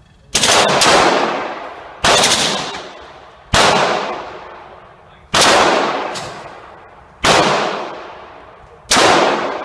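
Semi-automatic pistol shots, six of them slow and evenly paced about one every one and a half to two seconds, each loud crack followed by a long echoing decay.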